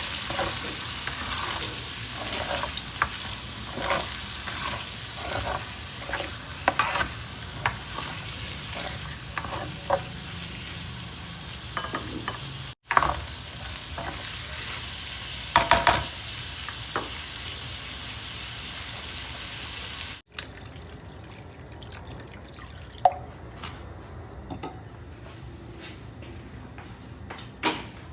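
Food sizzling in a frying pan while a utensil stirs it, with frequent short clicks and scrapes of the utensil against the pan. The sizzle breaks off abruptly twice, and after the second break only a low hiss and a few scattered knocks remain.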